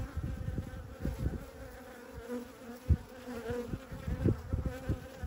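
Honey bees buzzing close up around a queen clip: a steady droning hum, with dull low bumps of handling and one sharp knock about three seconds in.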